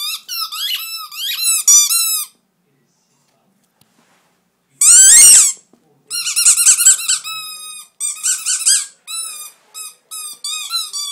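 Dog's squeaky toy squeaked over and over as a miniature dachshund puppy chews and pounces on it: quick runs of short high squeaks, a pause of a couple of seconds, one loud long squeal about five seconds in, then fast squeaking again.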